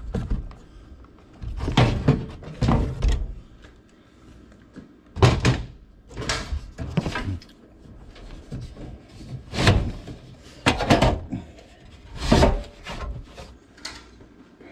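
A series of irregular thunks and metallic clunks as the sheet-metal blower housing inside an air handler cabinet is handled and shifted.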